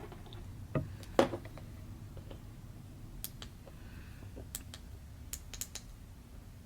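Scattered light clicks and taps of small objects being handled, with one sharper knock about a second in.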